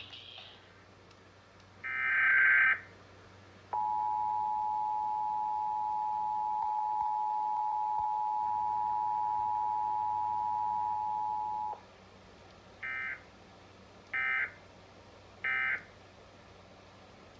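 Emergency Alert System tones: one digital header data burst, then the two-tone attention signal held for about eight seconds. Three short data bursts follow about a second apart, the end-of-message code that closes the alert.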